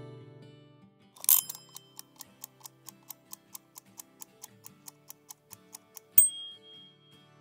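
Mechanical kitchen timer: a short rasping burst as it is set, then rapid even ticking at about five ticks a second, ending in a sharp ding that rings for about a second, the loudest moment. This is the timer going off.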